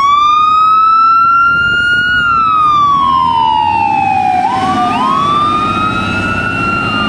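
Fire engine siren wailing. It rises slowly in pitch, falls, and starts a fresh rise about four and a half seconds in, with the truck's engine rumbling low underneath as the pumper pulls away.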